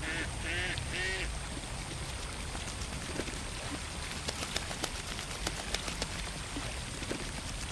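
Ducks quacking in a quick series during the first second or so, then a run of small sharp water splashes and drips on the pond's surface.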